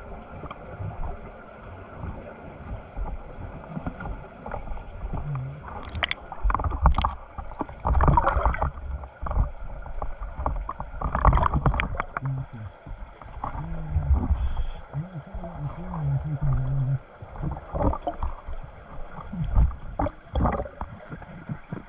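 Underwater action-camera sound of a scuba diver breathing through a regulator: several loud bursts of exhaled bubbles rushing past the camera, muffled by the water, with low wavering tones in between.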